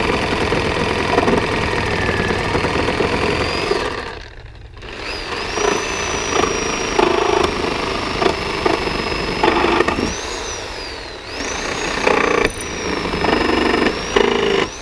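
Skil corded reciprocating saw fitted with a Milwaukee nail-embedded wood-cutting blade, running under load as it cuts through the nails joining pallet boards to the stringer. A high motor whine rides over the rattle of the blade. The saw stops for about a second about four seconds in, and the whine dips and climbs again around ten and eleven seconds as the blade catches in the wood.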